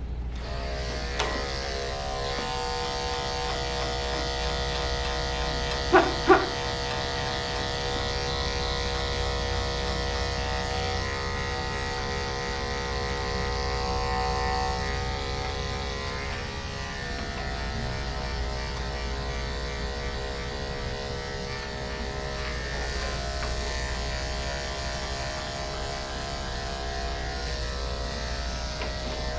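Electric dog grooming clipper running with a steady buzz while clipping a dog's coat. About six seconds in there are two short, loud sounds close together.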